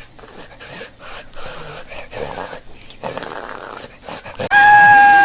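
A rabbit snoring: short, noisy breaths one after another. About four and a half seconds in, a loud, steady pitched tone cuts in over it and holds.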